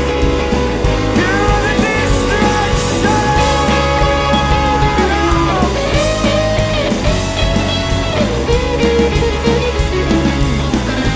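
Guitar-driven rock music: a melodic line bends and slides over a steady drum beat and bass, with no words heard.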